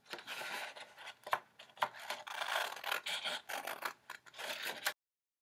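Scissors cutting through a sheet of black paper: a continuous scratchy rustle of the blades slicing along a traced line, with a few sharp clicks as the blades close. The sound cuts off suddenly near the end.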